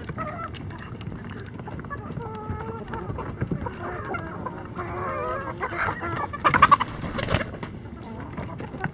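Icelandic chickens clucking and making wavering calls, with one short, loud, harsh squawk about six and a half seconds in.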